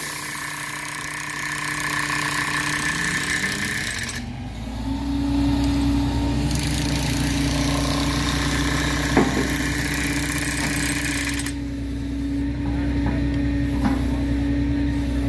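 Rail grapple truck's engine running, its revs rising about four seconds in and then holding steady and louder as the hydraulic grapple handles a stick of rail. A single sharp knock comes about nine seconds in.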